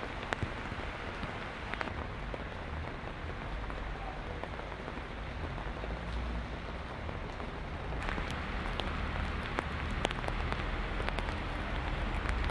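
Heavy rain falling steadily on wet, flooded street and pavement: an even hiss with scattered sharp ticks of drops striking.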